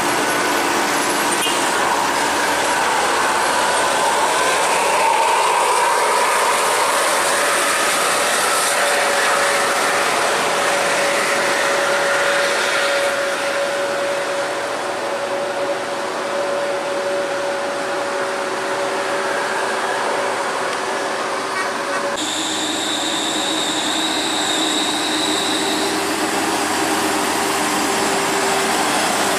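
Heavy coaches driving past on a steep climb, their engines working hard with a steady whine that shifts in pitch as they pass. The sound changes abruptly about 22 seconds in.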